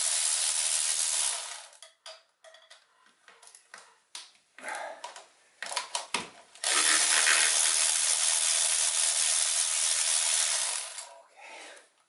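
Cordless power ratchet running in two steady runs of a few seconds each, with light clicks and knocks of metal parts between them.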